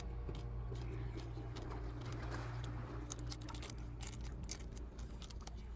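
Small wet clicks and crackles of crab being bitten and chewed, growing more frequent about three seconds in, over a steady low hum.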